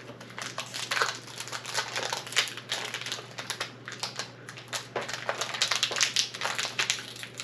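Foil wrapper of a Lorcana trading-card booster pack crinkling and tearing as it is opened by hand: an irregular, continuous run of crackles.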